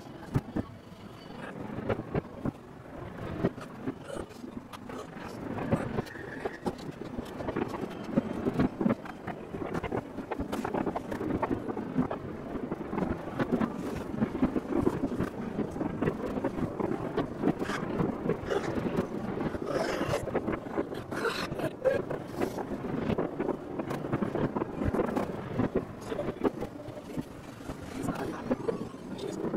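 Distant fireworks going off over a city: a continuous rumble of many bangs and crackles, with sharper pops standing out now and then.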